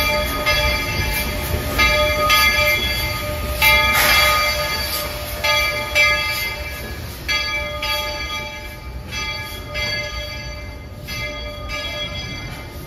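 Bell of the Baldwin-built steam locomotive 'Walter E. Disney' ringing steadily, struck under twice a second and fading toward the end, over the low rumble of the locomotive and its passenger cars rolling into the station.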